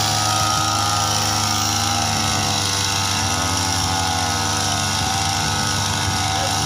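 Small petrol engine of a knapsack power sprayer running steadily at constant speed, pumping pesticide out through the spray lance.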